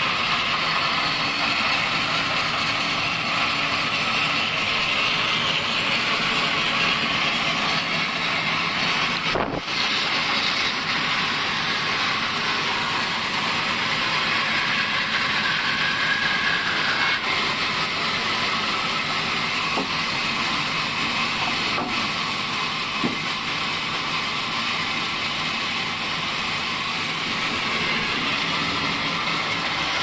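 Table band sawmill running and sawing through a log, a steady loud hiss with a brief dip about nine seconds in.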